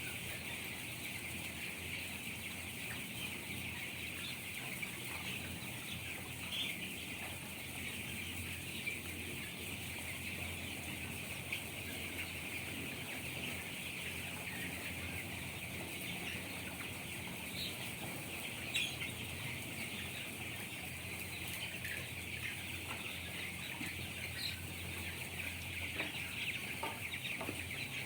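A large flock of 17-day-old chickens peeping and clucking without a break, many high chirps overlapping into one steady din, over a steady low hum.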